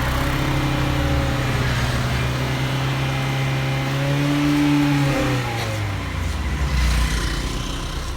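Honda City ZX GXi's four-cylinder petrol engine revved and held at raised speed, then falling back toward idle a little past halfway, just after a water and vinegar decarbonization mix has been fed into its intake to blow carbon out through the exhaust.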